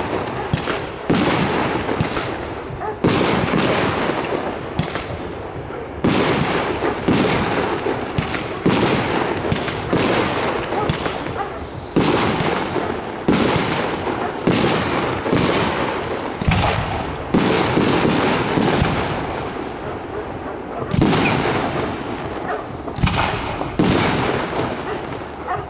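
Aerial firework shells bursting one after another, a loud bang every half second to a second, each trailing off in echo.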